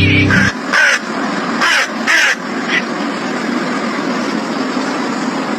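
Music cuts off half a second in, followed by five short, harsh caw-like animal calls, each dipping slightly in pitch, over a steady background hiss.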